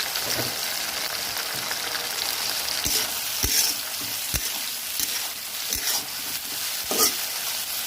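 Chicken and onions sizzling in oil in a kadai while a spatula stirs them, with a steady hiss and about five sharp knocks of the spatula against the pan.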